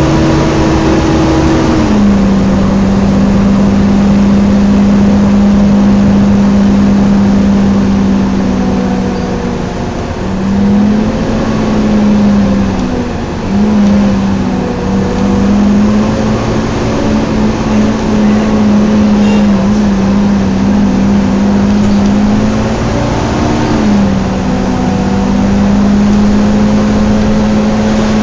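Cooling fan of a Volvo B9TL double-decker bus with East Lancs Olympus body, heard from the passenger saloon: a loud steady whine, the fan's 'hoover' noise, that drops in pitch about two seconds in, wavers for a few seconds midway, and rises briefly then settles again near the end. Diesel engine and road noise run beneath it.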